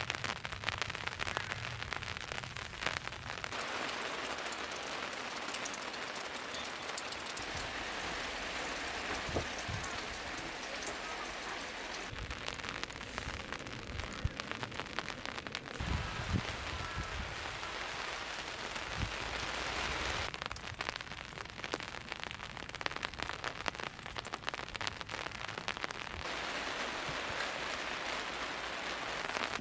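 Rain falling steadily on a surface, heard as an even hiss full of separate drop hits, with a few low knocks around the middle.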